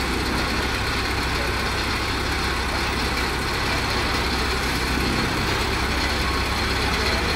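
Heavy diesel truck engine idling steadily, a constant low hum with no change in pace.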